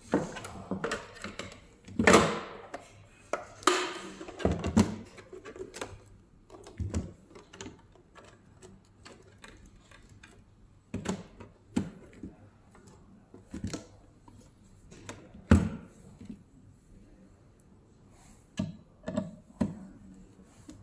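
Plastic case of a thermal receipt printer being handled and fitted shut: irregular clicks, knocks and snaps, the loudest about two seconds in, near four seconds and again around fifteen seconds.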